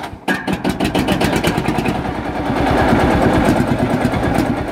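Field Marshall single-cylinder two-stroke diesel tractor engine catching on its shotgun-cartridge start and running, its firing strokes coming in a quick, even rhythm that grows louder over the first few seconds.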